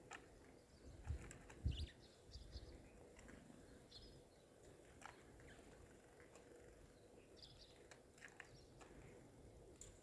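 Faint, scattered short chirps of small feeder birds (house sparrows and great tits), coming in little clusters. A few soft low bumps sound in the first couple of seconds.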